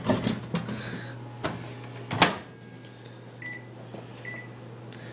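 Microwave oven being set for another run: a few knocks and clatters in the first two seconds, then two short high keypad beeps about a second apart, over a steady low hum.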